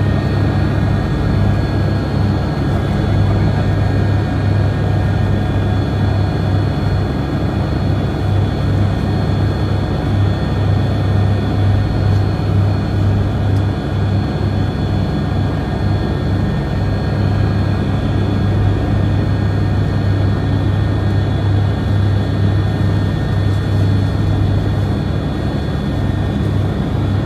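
Engine and airflow noise inside the cabin of a small aircraft in flight: a loud, unbroken drone with a strong low hum and thin, steady high tones over it.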